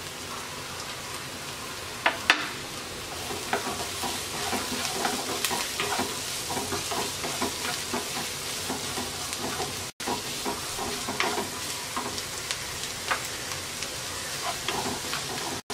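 Diced onion, carrot and green chilli sizzling steadily in hot oil in a wok while a wooden spoon stirs and scrapes them, with many small taps and a couple of sharper knocks about two seconds in.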